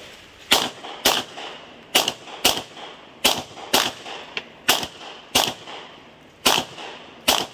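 Glock pistol fired in a stage, ten shots in five pairs, with the shots of each pair about half a second apart: a double tap on each of five paper targets.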